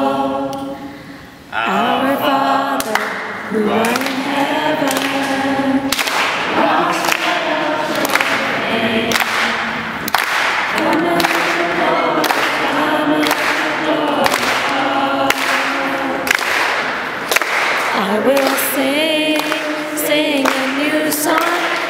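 A group of voices singing a worship song together, with a steady beat of sharp strikes about twice a second. The singing dips briefly about a second in, then picks up again.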